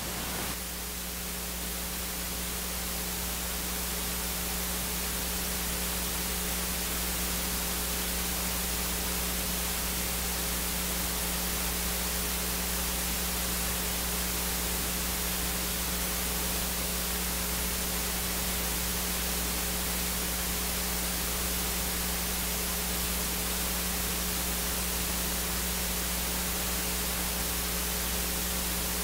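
Steady static hiss with a low electrical hum beneath it, unchanging throughout.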